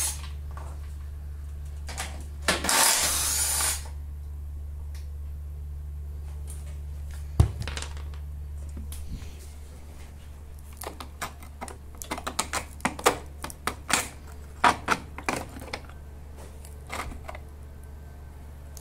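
A cordless drill-driver runs for about a second, backing out the bolts of a lawn mower's recoil pull-starter. Then comes a sharp knock and a long run of plastic and metal clicks and knocks as the starter housing is lifted off the mower's plastic cover, over a steady low hum.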